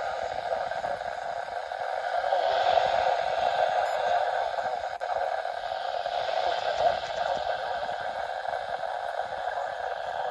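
Weather radio receiver hissing with static from a weak, poorly received signal. The noise is steady, with the loudness swelling and fading slightly.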